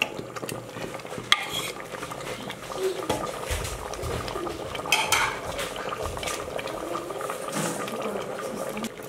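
A steel ladle stirring cooked goat curry in an open pressure cooker, with scraping and a few sharp clinks of metal on the pot about a second in and again about five seconds in.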